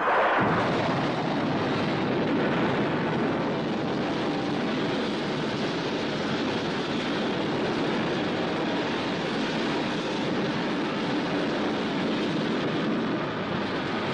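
Animated-film sound effect of an explosion's fireball: a steady, dense rushing roar that cuts in suddenly and holds at an even level.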